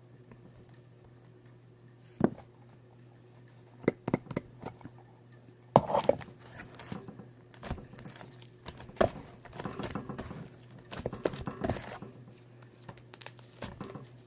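Slime being stirred and squished in a bowl: irregular sticky clicks and squelches. They start about two seconds in and come thick and fast through the second half.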